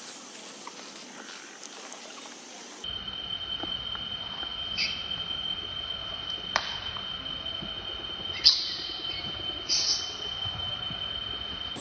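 A steady high-pitched whine over background hiss, broken by a few short sharp squeaks and a click from long-tailed macaques play-fighting. The loudest comes about two-thirds of the way through.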